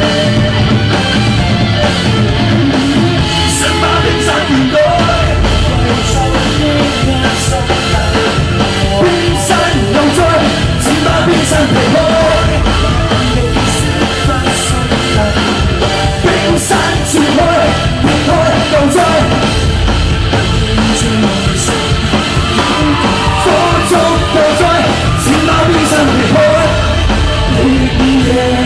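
Live pop song played loud over a concert PA, with a steady dance beat and vocals, heard from the audience.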